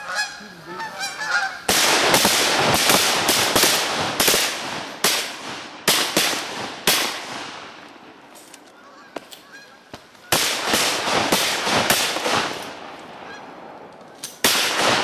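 A flock of Canada geese honking overhead, then a rapid volley of shotgun blasts starting just under two seconds in, about eight shots over five seconds, with another blast or two later on as the geese keep calling.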